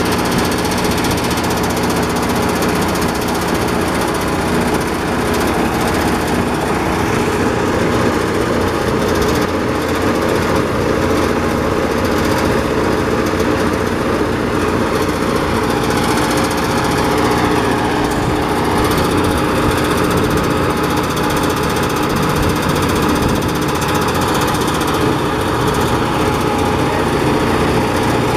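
Power rice thresher running steadily at working speed: its small single-cylinder engine drives the threshing drum while rice stalks are fed in by hand.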